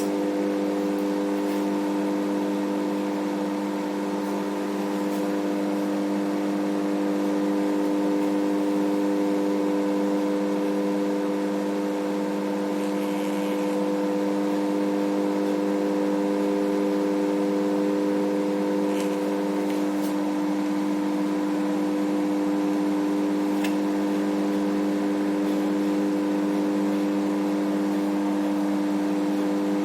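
Microwave oven running a heating cycle with its newly replaced high-voltage diode: a steady, even hum, with a few faint ticks in the second half.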